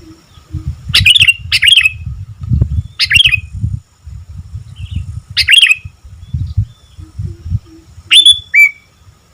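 Sooty-headed bulbul (kutilang) singing: six short, bright, loud phrases spaced a second or more apart, each note dropping quickly in pitch. An uneven low rumble runs underneath.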